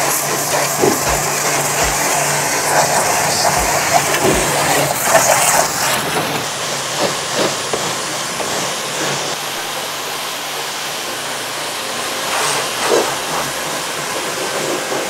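AKEN DW2000 1650 W electric pressure washer spraying a car: the hiss of the high-pressure water jet over the pump motor's steady hum.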